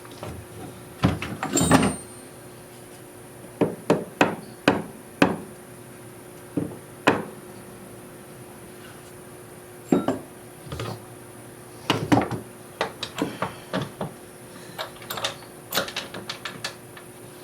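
Irregular knocks and clatters of wooden workpieces being handled and set down on a bench, some single and some in quick runs, over a faint steady hum.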